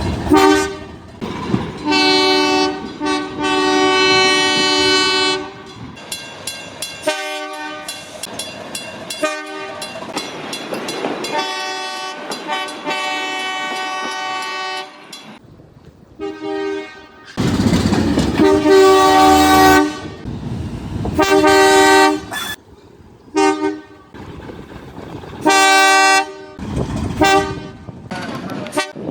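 Train horns sounding in a string of short and longer blasts, each a chord of several steady notes, starting and stopping abruptly. Between some blasts there is the rushing noise of a moving train.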